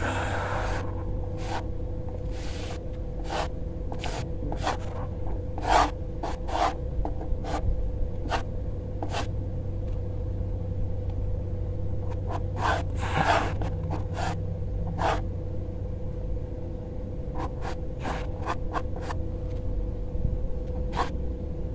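Graphite pencil scratching across sketchbook paper in quick, irregular strokes, in bursts with short pauses between, as loose construction lines for a sketch are laid down. A steady low hum runs underneath.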